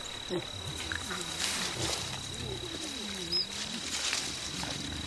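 Mountain gorillas making low grunting calls, several of them sliding up and down in pitch, with leaves rustling, over a steady high insect-like whine.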